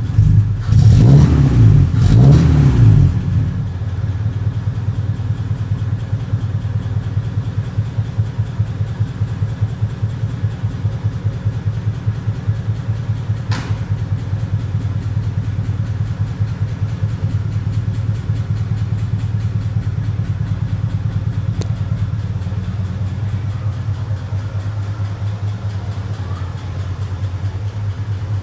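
Chevrolet Opala's 151 four-cylinder (2.5 L) engine, revved twice near the start, then settling into an even, pulsing idle rumble.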